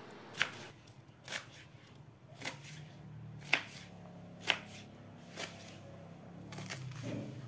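Kitchen knife slicing napa cabbage on a plastic cutting board, the blade knocking on the board about once a second.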